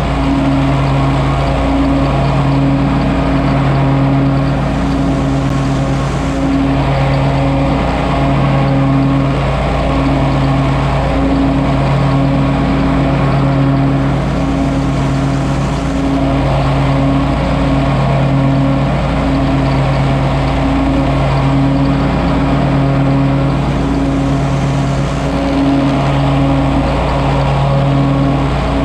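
John Deere 648R stand-on mower running steadily with its 48-inch mulching deck, mulching leaves. The engine drone is constant, with a low hum that wavers slightly in strength.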